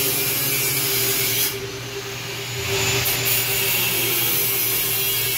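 Steady machine noise: a low hum with a loud hiss over it. The hiss drops away for about a second and a half near the middle, then returns.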